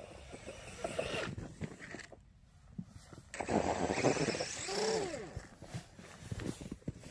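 Brushless electric motor of a Traxxas Bandit RC buggy whining as it throttles up, with its paddle tires churning snow. There are bursts of acceleration about a second in and again from about three and a half seconds, the louder one ending in a whine that rises and falls.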